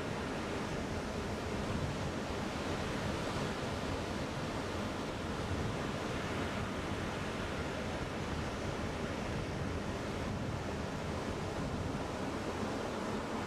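Ocean surf washing steadily onto the beach, a continuous rushing wash with no single wave standing out, with some wind on the microphone.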